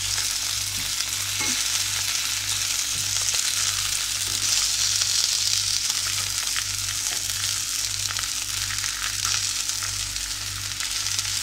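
Zucchini slices sizzling steadily as they fry in oil in a frying pan, with faint ticks of a metal fork against the pan as the slices are turned over.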